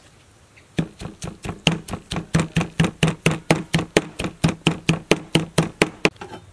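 Knife chopping red chillies on a wooden cutting board: quick, even strokes, about five a second, starting just under a second in and stopping near the end.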